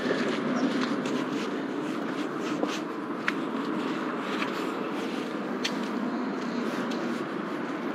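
Handling noise from a hand-held phone: fingers rubbing and shifting over the microphone while walking, with a steady rustling rumble and a few sharp clicks.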